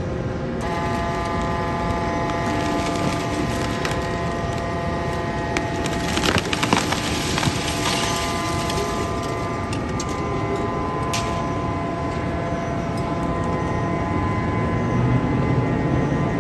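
Heavy industrial machinery breaking up firearms: a steady machine whine of several held tones under dense metallic clattering and cracking, with a louder cluster of cracks about six to seven seconds in.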